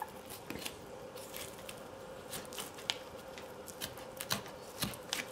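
Thin, long-bladed knife cutting moose meat away from the bone around the hip joint: scattered small clicks, scrapes and rustles at irregular moments over a faint steady hum.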